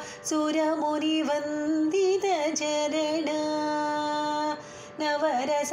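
A woman singing a Sanskrit devotional hymn solo in Carnatic style, holding long notes joined by slow, ornamented bends in pitch. She breaks off briefly near the end before going on.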